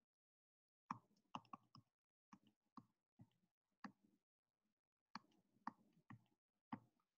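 Stylus pen tapping and clicking on a touchscreen while handwriting: a dozen or so faint, irregular clicks, starting about a second in.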